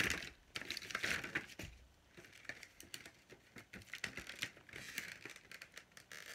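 Clear plastic bags crinkling and rustling as they are handled and opened by hand: irregular crackles and small snaps, louder in the first second or so.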